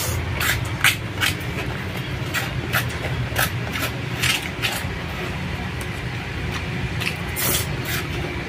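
Close-up eating sounds: irregular sharp clicks and smacks from a plastic spoon scraping rice out of a paperboard takeaway box and from chewing, over a steady low hum.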